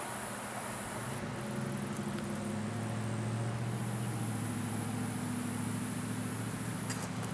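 A distant engine's low, steady drone that grows louder about a second in, with insects buzzing in a fast high pulse over it.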